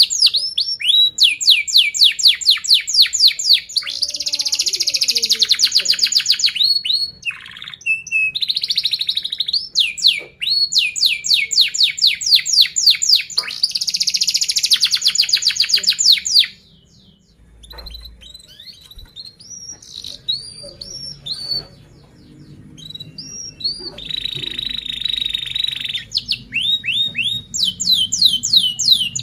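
Yellow domestic canary singing in tight rolls: long runs of fast, rapidly repeated high sweeping notes, about ten a second. After a short break a little past the middle come scattered chirps, then the rolls start again near the end.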